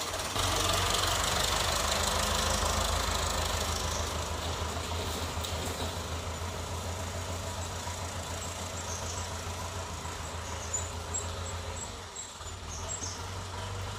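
An old farm tractor's diesel engine running with a steady low beat as the tractor pulls away, growing gradually fainter.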